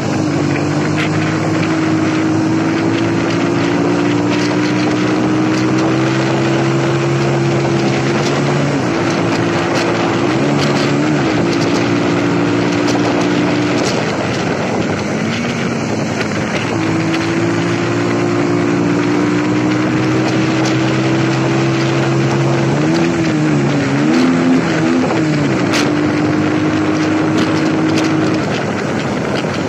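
Motorcycle engine running under way, its note creeping up in pitch as it gathers speed, with wind rushing over the microphone. About halfway through the engine note drops away for a few seconds, and it wavers up and down near the end.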